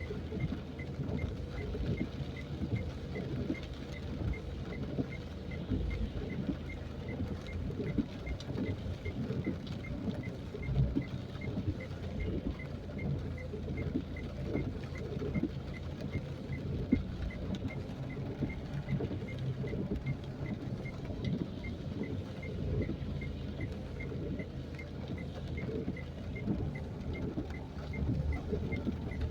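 Continuous low rumbling outdoor noise with a crackly texture, and a faint high tick repeating evenly about twice a second.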